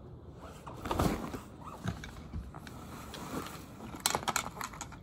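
Handling noise as the camera is moved out against a leather tote bag: rustling, a thump about a second in, and a quick run of clicks and taps about four seconds in.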